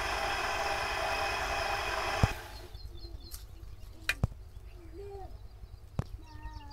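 Potter's wheel running with a steady mechanical hum that cuts off suddenly a little over two seconds in. After that come a few sharp clicks and faint bird calls.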